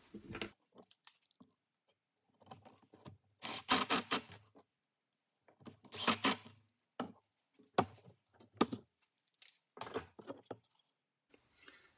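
Pocket-hole screws being driven into a wood joint with a drill and square driver bit: two short bursts, about three and a half seconds in and again at six seconds, with small clicks and handling of the boards and screws between them.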